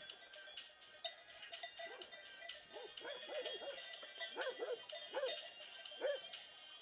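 Shepherd dogs barking in series of short barks. The barks start about two seconds in, are thickest in the middle, and the last comes about six seconds in.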